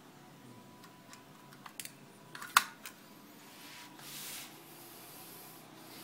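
Electrical plug being pushed into a power-strip socket: a few small scraping clicks, then one sharp snap about two and a half seconds in as the prongs seat, followed by a soft rustle.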